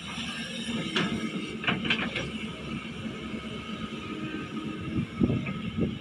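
Excavator engine running steadily, with a few sharp metallic clanks about one to two seconds in and some low thuds near the end.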